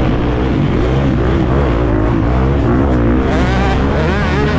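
Four-stroke single-cylinder motocross bike engine, a Husqvarna FC350, revving up and down in quick swings as the throttle is worked and released around the track.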